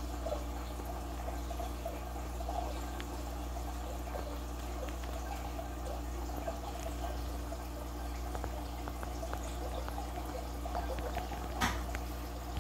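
Aquarium sponge filter bubbling steadily, small bubbles blipping and trickling up the uplift tube over a low steady hum. A single sharp tap near the end.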